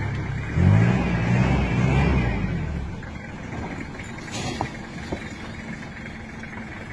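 Off-road vehicle's engine running, rising and falling in pitch for the first couple of seconds, then settling to a quieter steady running.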